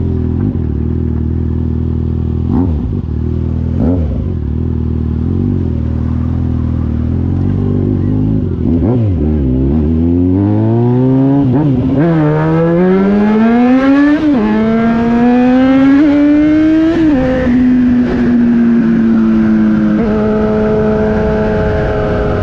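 Motorcycle engine idling steadily for about eight seconds, then pulling away and revving up through the gears, with three upshifts in a row, each a sudden drop in pitch. It then settles into steady cruising.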